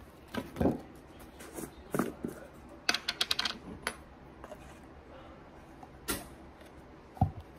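Light clicks and taps of a metal spoon against a plastic jar of spread as it is scooped out, with a quick run of clicks about three seconds in and a sharper tap near the end.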